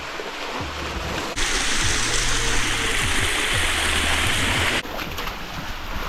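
Rushing creek water, a steady hiss that gets much louder for about three seconds from a second and a half in, over quiet background music.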